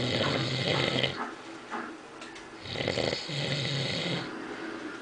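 A man passed out drunk, snoring: two long snores, each over a second, about two and a half seconds apart, with quieter breathing between.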